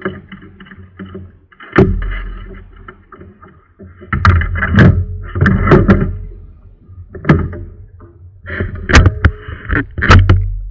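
Kayak paddling: paddle strokes with sharp knocks as the paddle strikes the kayak, several loud knocks spread through the stretch.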